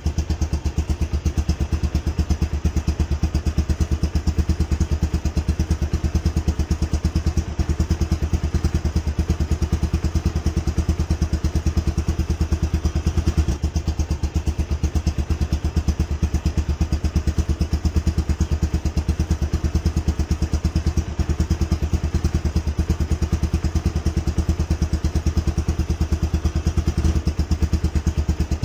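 An engine running at a steady idle: a rapid, even beat of firing pulses with a deep tone that does not change.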